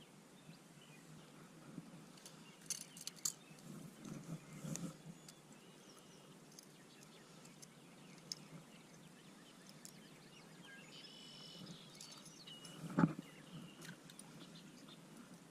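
Faint outdoor ambience with scattered clicks and soft knocks, a brief high chirping call a little before the end, and one sharp knock near the end.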